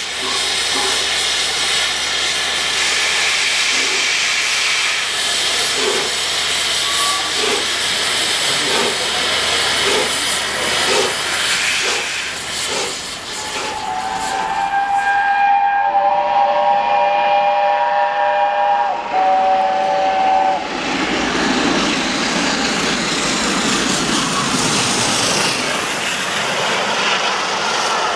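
Steam locomotive blowing off steam with a loud hiss, its exhaust beating slowly about once a second as it starts away. About halfway through, a steam whistle of several notes sounding together is held for roughly six seconds, then a steam-hauled train rushes past.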